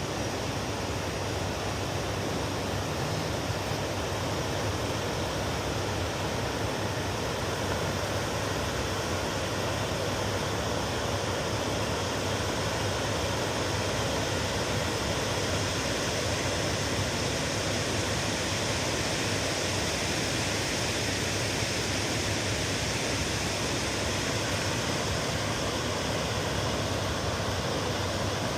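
Steady rushing noise of sea surf and wind on the shore, an even roar with no separate wave crashes standing out.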